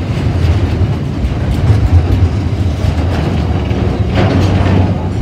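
Container flat wagons of a grain freight train rolling past close by: a steady low rumble with the wheels clacking over the rail joints, louder for a moment about four seconds in.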